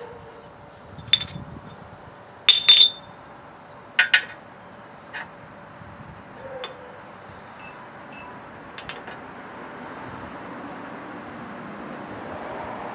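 Steel parts clinking as a fabricated bracket plate and clamp are handled and fitted against a winch mount. There are a few sharp ringing metal clinks, the loudest a double clink about two and a half seconds in and another at about four seconds, then fainter taps.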